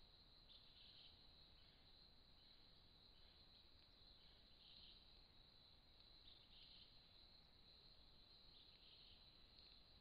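Very faint insect chorus: a steady high-pitched trill with brief louder swells every second or two, over low hiss.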